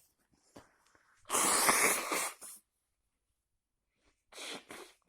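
A person with a cold sneezing: one big, loud sneeze a little over a second in, lasting about a second, then two short, quieter bursts of breath near the end.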